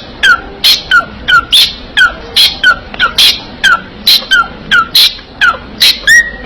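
A parrot making a fast, even run of short sharp calls, about three a second, each a high squawk ending in a short falling whistle.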